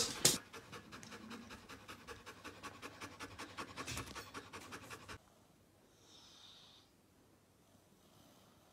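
Husky panting quickly and evenly with its tongue out; the panting stops suddenly about five seconds in.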